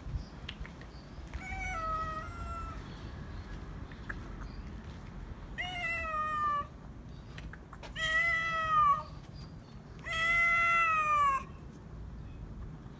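Tabby cat meowing four times, each meow falling in pitch at its end, the last two the loudest.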